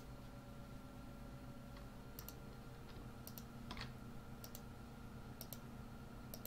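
Faint computer mouse clicks, each a quick double tick of button press and release, coming about once a second from about two seconds in, over a low steady hum.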